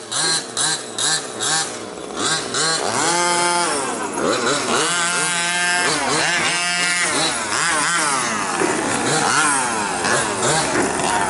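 Small two-stroke petrol engines of 1/5-scale RC buggies revving up and down over and over, with short throttle blips in the first couple of seconds, then longer rising and falling revs through the corners.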